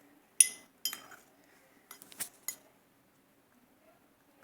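A utensil clinking and scraping against a mixing bowl as slime is stirred and scraped loose from its sides. There are about five sharp clinks in the first two and a half seconds.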